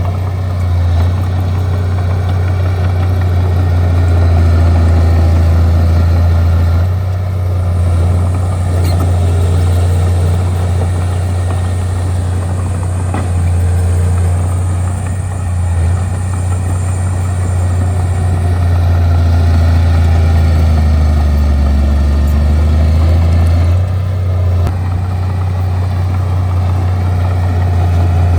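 Bulldozer's diesel engine running with a deep, steady drone, its tone shifting a couple of times as the machine works.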